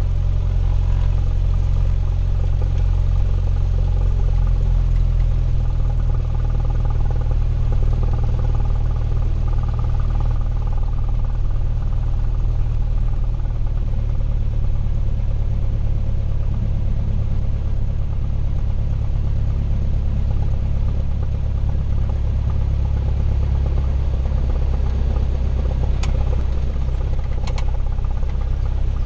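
Cessna 172's piston engine and propeller running at low taxi power, heard from inside the cabin as a steady low drone. Two short clicks come near the end.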